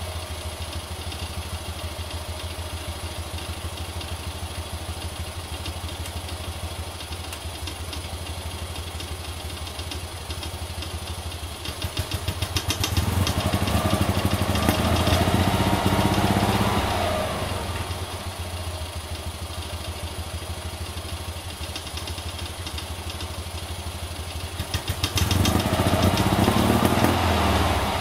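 Toyota Sports 800's air-cooled flat-twin engine idling steadily. About halfway through the revs are slowly raised, held for a few seconds and let fall back to idle, and near the end they rise again.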